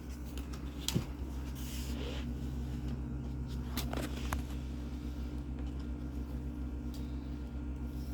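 A few light knocks and clicks, with a brief rustle, from a PC case and its packaging being handled, over a steady low hum.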